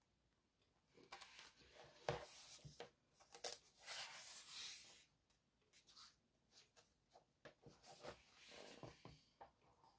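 Faint paper rustling as a page of a paperback colouring book is turned by hand and smoothed flat, followed by a few soft ticks and another brief rustle near the end.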